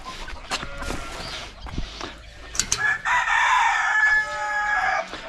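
Chickens clucking, then a rooster crows once: a long call starting about three seconds in and lasting about two seconds, the loudest sound here.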